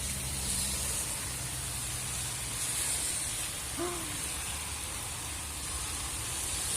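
Heavy rain pouring down in a dense, steady hiss that swells and ebbs slightly with the gusts. A brief voice sound about four seconds in.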